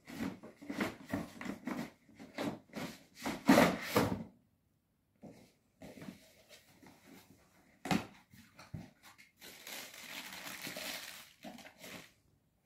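Paper shopping bag, cardboard shoebox and tissue paper being handled and opened, rustling and crinkling. There is a quick run of crinkles and soft knocks in the first four seconds and a short pause, then more scattered rustling, with a sharp knock about eight seconds in and a longer stretch of rustling near the end.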